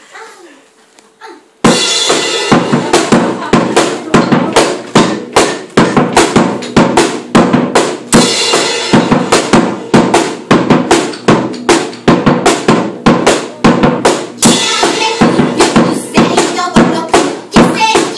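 Drum kit played live in a fast, driving beat with cymbals, starting suddenly about a second and a half in after a short quiet moment.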